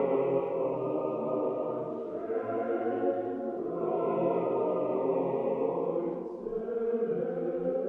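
Choir chanting in slow, held phrases, with several voices sounding together.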